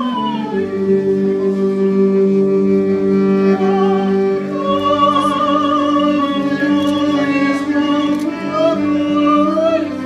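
Violin playing a slow melody in long held notes, with women's voices singing along from about halfway through.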